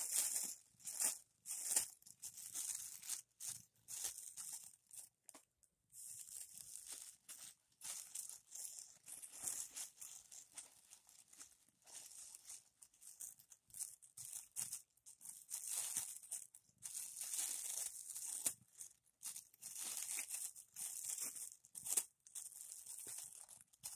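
Thin plastic shopping bag crinkling in irregular stop-start bursts as a cat mouths and rubs its face against it.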